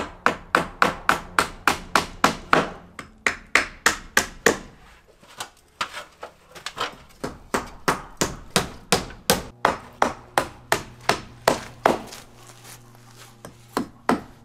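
Hammer driving nails into wooden boards: steady runs of sharp strikes about three a second, broken by two short pauses.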